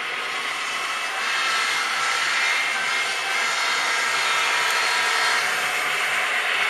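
HO-scale model diesel locomotives running along the layout track: a steady whirring hiss, growing louder as the train approaches.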